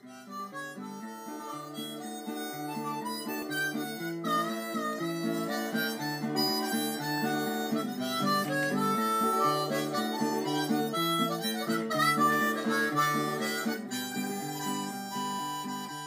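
Instrumental intro theme music: a melody over a repeating chord accompaniment, building up over the first few seconds and fading out near the end.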